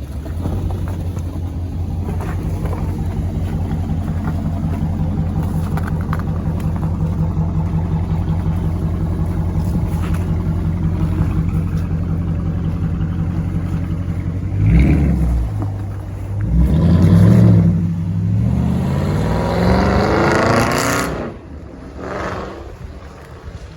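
Car engine idling steadily, blipped twice, then accelerating away with a rising pitch that cuts off about 21 seconds in.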